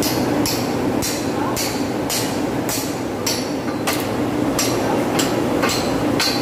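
Rhythmic metal clicking, about two clicks a second, from hand work on setting a large electric motor in place, over a steady low machinery hum.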